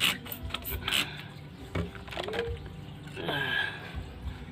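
Hand trigger spray bottle squirting water onto a whetstone to wet it for sharpening: a sharp hissing spray at the start and another about a second in.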